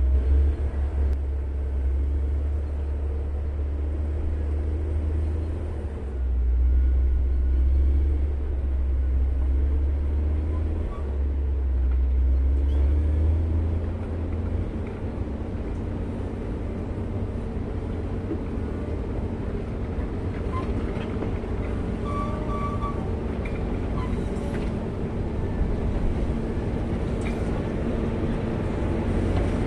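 Diesel engine of a Caterpillar 140M motor grader running steadily as the machine drives down a dirt road toward the listener and grows nearer. A heavy low rumble dominates for about the first fourteen seconds, then eases and leaves a steadier engine note.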